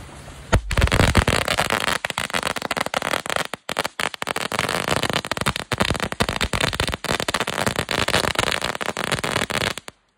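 A string of Uber Thunderbomb firecrackers going off in a rapid, continuous chain of sharp bangs. It starts about half a second in and stops abruptly near the end.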